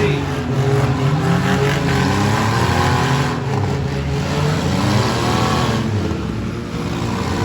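Demolition derby cars' six-cylinder engines revving up and down, several at once, the pitch rising and falling as they accelerate and back off.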